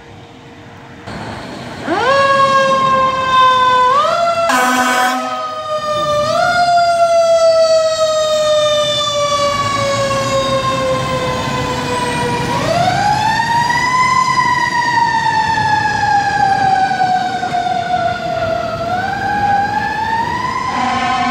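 Fire truck's mechanical siren winding up about two seconds in, then coasting slowly down in pitch and being wound back up again several times. A short air horn blast cuts in around the fifth second, and the horn sounds again near the end.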